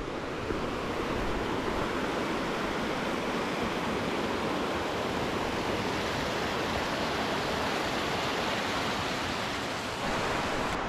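Steady rushing of a fast mountain river, the Shumak: an even, unbroken roar of water.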